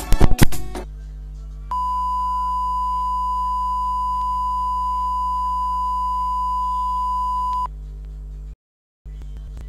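A steady electronic beep at one high pitch, held for about six seconds, over a low constant hum. A few sharp clicks come just before it, and the sound cuts out completely for a moment near the end.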